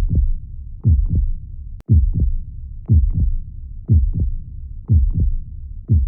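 Heartbeat: paired lub-dub beats about once a second, even and steady, over a constant low rumble. A brief click with a short dropout comes a little before two seconds in.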